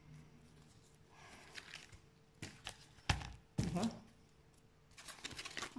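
Quiet handling of craft materials on a plastic-covered worktable, with two dull thunks about three seconds in as something is set down, and light rustling and clicking near the end.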